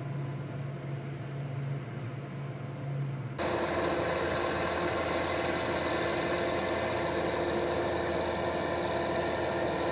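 Combine harvesters running as they cut grain: a steady low machine hum, which about a third of the way in changes abruptly to a louder, higher, fuller steady drone of several machines working.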